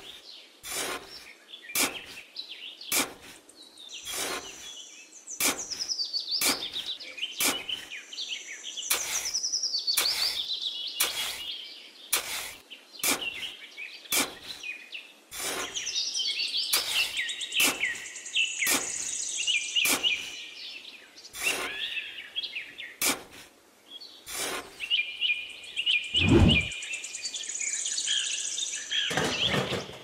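Songbirds chirping and twittering, over a regular series of short, sharp scraping clicks, about one every 0.7 s, from a small trowel digging into damp sand. A dull thump sounds near the end.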